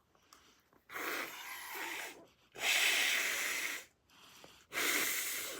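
A whoopee cushion being blown up by mouth: three long breaths blown into it, each about a second long, the middle one the loudest.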